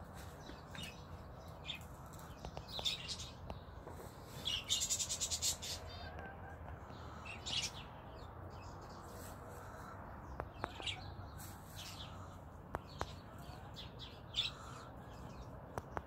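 Small songbirds chirping on and off, with a fast trill about five seconds in that is the loudest call, over a steady low background rumble.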